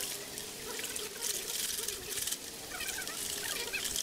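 Water splashing and sloshing in a plastic bucket as hands rub and scrub a coiled network cable in soapy water, in irregular bursts.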